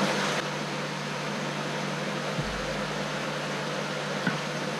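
Steady machine hum with an even hiss; a soft low thump about halfway through and a light click near the end.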